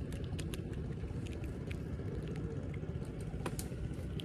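Steady low rumble with scattered faint clicks.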